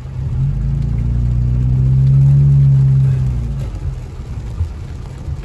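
Car engine heard from inside the cabin as the car pulls away: its note rises in pitch and loudness to a peak about two and a half seconds in, then eases off, over a steady background hiss.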